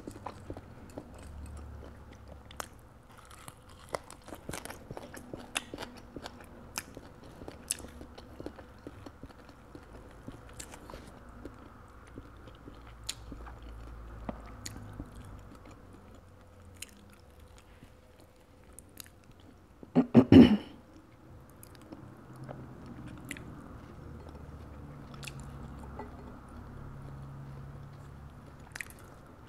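Close-miked chewing and small mouth sounds of a person eating balut, with scattered sharp clicks from fingers and a spoon as the duck embryo is picked apart. A brief, much louder noise of a few quick peaks comes about two-thirds of the way through.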